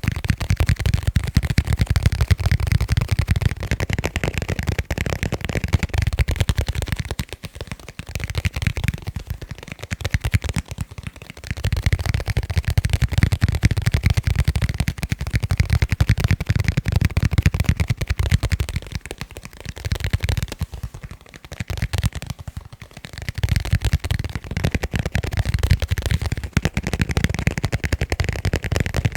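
Fast tapping on leather cases: a dense stream of quick taps with a deep thud in them. It comes in runs, easing off briefly a few times, longest about two-thirds of the way through.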